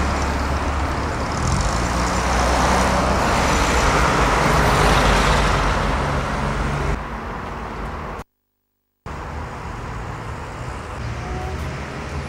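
Street traffic: a motor vehicle passes close by, swelling up and fading over a few seconds, then quieter road noise after a short dropout to silence a little past the middle.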